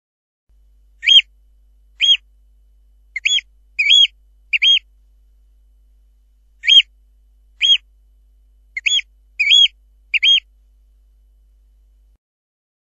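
Eurasian oystercatcher calling: two runs of five short, piercing piping calls about a second apart, each rising and falling in pitch, with a pause of about two seconds between the runs. Several of the calls come as quick doubled notes.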